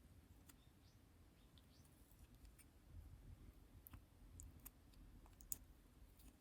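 Faint, scattered small clicks and sticky taps from lipstick being worked close to the microphone, with one sharper click about five and a half seconds in.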